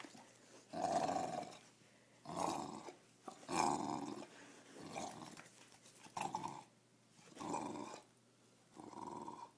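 English bulldog growling during a tug-of-war game with a rubber toy bone, in about seven short growls with brief pauses between them.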